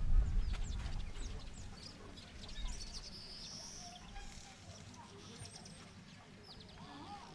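Open-air village ambience: small birds chirping in short high calls, with some chicken clucking, over a low rumble that is strongest in the first second and a half.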